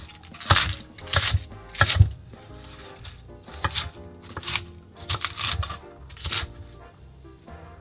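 Kitchen knife cutting cabbage into small pieces on a wooden cutting board: a series of separate cuts striking the board at an uneven pace, with background music underneath.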